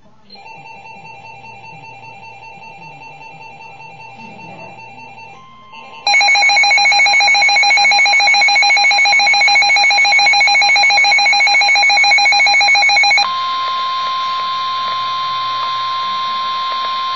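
Emergency Alert System alert tones. A softer pulsing tone runs for about four seconds. About six seconds in, the loud, harsh two-tone EAS attention signal sounds for about seven seconds, then gives way to a steady single-pitch warning tone.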